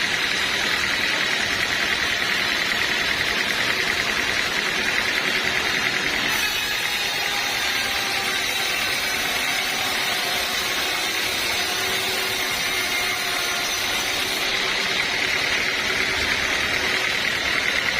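Sawmill machinery running steadily. Its tone changes from about six seconds in until about fourteen seconds in.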